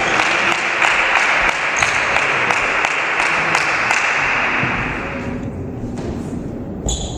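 Spectators applauding a won point in a table tennis match, many quick claps in a dense patter that dies away about five seconds in.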